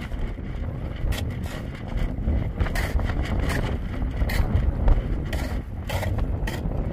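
Steel shovel blade scraping and knocking into dry, stony soil in irregular strokes while digging, over wind rumbling on the microphone.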